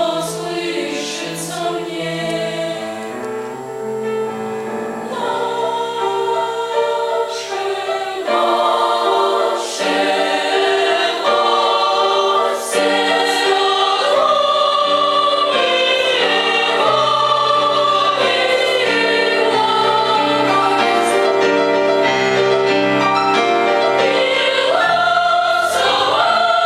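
Children's choir singing, growing louder about eight seconds in.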